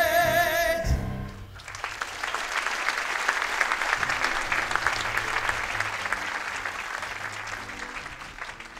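A chorus holds the last sung note of a song with vibrato, cutting off with a low final note about a second in. Then an audience applauds, the clapping slowly fading toward the end.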